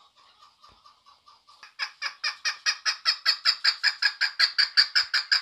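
Female chukar partridge calling: a faint run of quick notes that swells about two seconds in into a loud, fast, even series of repeated call notes, about six or seven a second.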